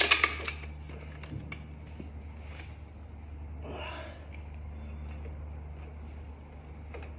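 A few sharp metal clicks from handling a stuck motorcycle headlight trim ring, then a steady low hum. About four seconds in there is a short breathy sound from the man straining at it.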